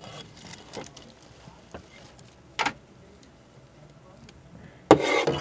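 Handling noise of a plastic cup and a plush toy being moved about on a desk, with faint clicks and rustles, a short sharp knock about two and a half seconds in, and a louder clatter near the end.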